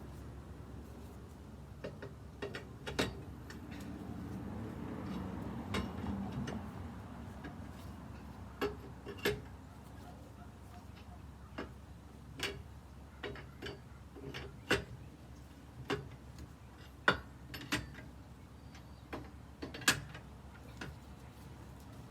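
Sharp metallic clicks and clinks at irregular intervals, about a second or more apart, from loosening and removing a car wheel's lug nuts by hand. A low hum swells briefly a few seconds in.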